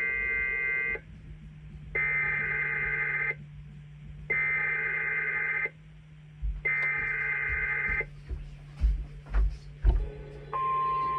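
Emergency Alert System SAME header: four harsh, buzzy data bursts, each about a second long and about a second apart, followed near the end by the steady 1050 Hz NOAA Weather Radio warning alarm tone, all received over the radio with a steady low hum. A few low thumps come between the last burst and the alarm tone.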